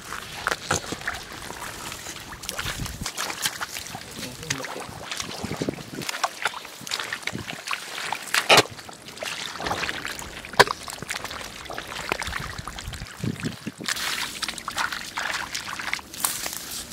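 Wading and groping in the shallow muddy water of a rice paddy: irregular sloshing and small splashes, with two sharper splashes about eight and a half and ten and a half seconds in.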